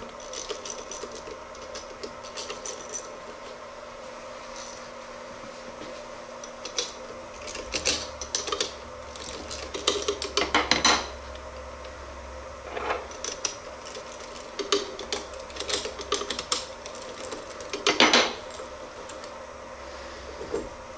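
Hand tools clicking and clinking against metal as a hex key works the bolts and the B side of a test mold is freed from a desktop injection molding machine, with louder clatters about 11 and 18 seconds in. A steady faint hum runs underneath.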